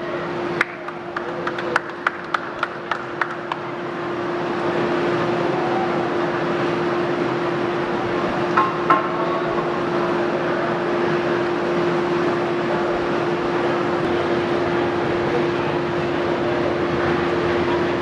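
Cupola furnace's air blower running with a steady roar and a constant hum. In the first few seconds there is a quick run of sharp metallic taps, about three a second, and two more knocks come about halfway through.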